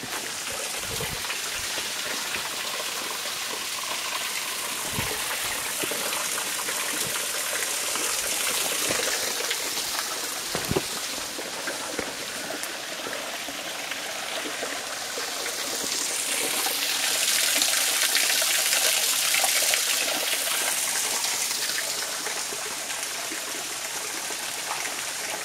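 Waterfall and creek water splashing over rocks, a steady rush that swells louder for a few seconds in the second half. A few short knocks come through in the first half.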